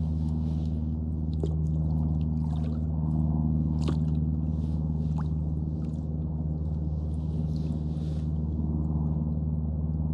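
Kayak paddle splashing and dripping water in short bursts, with a few sharp clicks, over a steady low hum.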